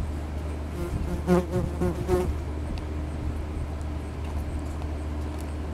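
A steady low hum with a constant buzzing tone over it, like background machinery or traffic. About a second in, a brief faint voice is heard over it.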